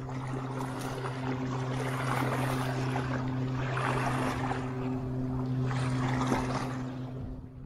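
Small sea waves sloshing and surging about every two seconds, over a steady low motor-like hum.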